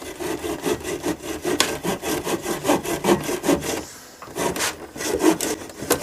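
Saw cutting through a cork with quick back-and-forth strokes, about five a second. The strokes pause briefly about four seconds in, then start again.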